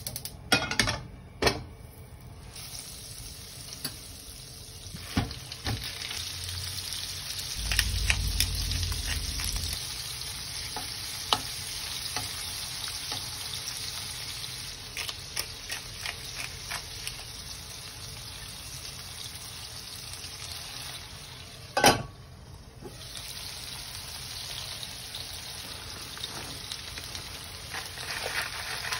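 Chicken pieces sizzling in hot fat in a non-stick frying pan, with scattered clicks and taps of a metal spoon against the pan. One loud, sharp knock comes about three-quarters of the way through.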